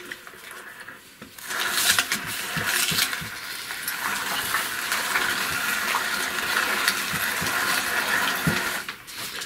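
Hand-cranked metal meat grinder turning, forcing halved raw onions through its cutting plate: a steady grinding noise with many small clicks. It starts about a second and a half in and stops near the end.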